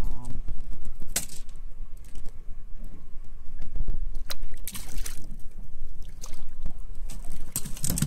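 Sea water sloshing and splashing against a fishing boat's hull over a steady low rumble, with a few sharp knocks and splashes scattered through.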